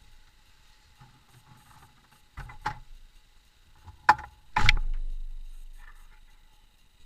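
A few knocks, a sharp click, then a heavy car-door slam with a low boom dying away over about two seconds.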